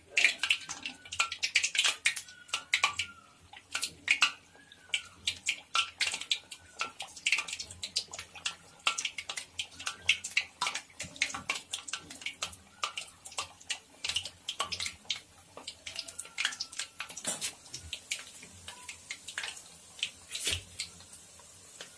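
Sweet dough cutouts deep-frying in hot Dalda oil in an iron kadai: a continuous sizzle of dense crackles and pops. The crackling is busiest in the first few seconds as fresh pieces are slipped into the oil, then thins to a lighter, steadier sizzle.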